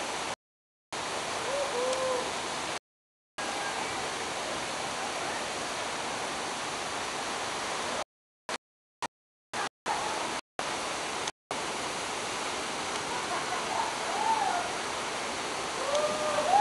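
Steady rush of a waterfall, close by. The sound drops out to complete silence several times for a fraction of a second, most often between about 8 and 11 seconds in. Faint distant voices calling out, rising and falling in pitch, come through about two seconds in and again near the end.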